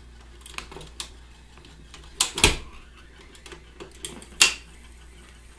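Record changer of an Arvin portable record player cycling, with a series of mechanical clicks and clunks over a steady low hum as it drops a 78 onto the platter and swings the tone arm over. The loudest clunks come about two and a half seconds and four and a half seconds in.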